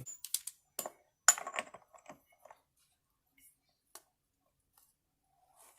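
Small steel parts clinking and clicking as the washer and castle nut go onto the driveshaft's threaded end. Several sharp metallic clinks come in the first two seconds, then a few faint ticks.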